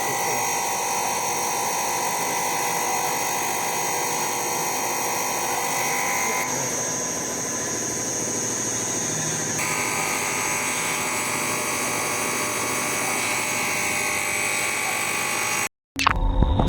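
CR304 common rail injector test bench running on four injectors, a steady mechanical whine and buzz. The tone shifts about six seconds in and again near ten seconds. It cuts off suddenly near the end.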